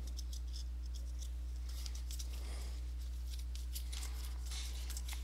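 Crinkling and rustling of a Topps trading-card pack wrapper being pulled open and the cards handled, a run of quick crackles, over a steady low hum.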